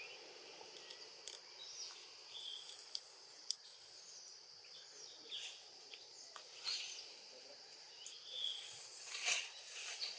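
Steady high-pitched insect drone, with scattered short high chirps and a few sharp clicks.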